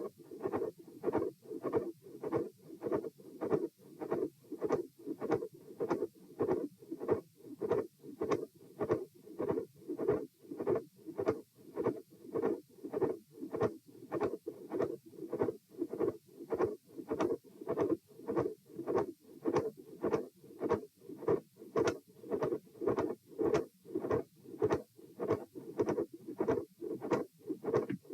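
Human heart sounds heard through a stethoscope: a fast, regular heartbeat of about two beats a second, with the uploader's labels of a midsystolic murmur, a click and a fixed split second heart sound.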